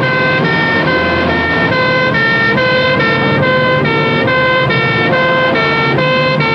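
Two-tone sirens of emergency crash vehicles sounding continuously, the pitch stepping high and low about every half second, over the low running of vehicle engines.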